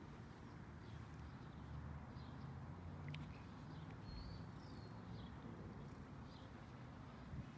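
Faint short, high chirps of small birds, a few of them spread through the middle, over a low steady rumble of outdoor background.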